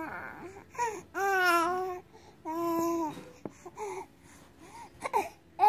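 Baby cooing and babbling in drawn-out vowel sounds, one wavering in pitch about a second in and another held steady, followed by softer short sounds near the end.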